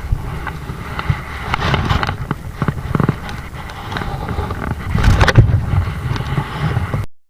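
Strong wind buffeting the microphone, a steady low rumble with gusty surges and irregular knocks. It cuts off abruptly near the end.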